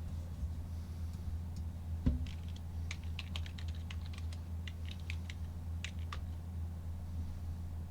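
A single knock about two seconds in, then a few seconds of irregular typing on a computer keyboard, over a steady low hum.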